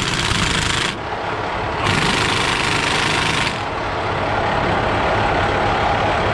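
Cordless impact wrench running a caging bolt into an air brake spring chamber, in two bursts: one ending about a second in, another from about two to three and a half seconds in.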